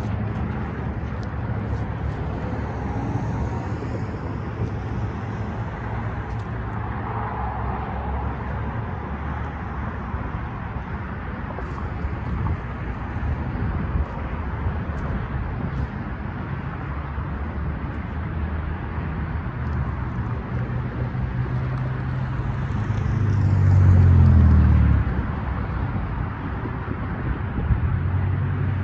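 Road traffic with a steady low rumble, as cars and trucks drive over the crossing. About three quarters of the way through, one vehicle passes close and louder, its pitch falling as it goes by.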